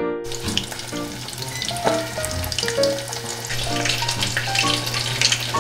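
A continuous crackling, sizzle-like noise full of small clicks, over soft background piano music and a steady low hum.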